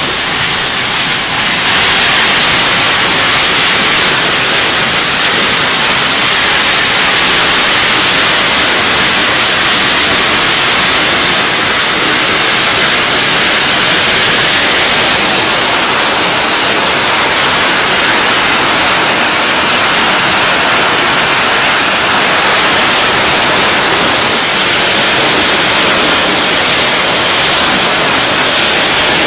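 A hailstorm: hail and heavy rain pelting down in a dense, steady hiss that gets a little louder about a second and a half in.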